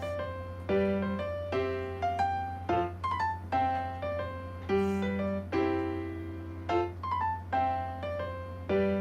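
Background music: a gentle piano or electric-piano tune of short struck notes in an even, repeating pattern, over a steady low hum.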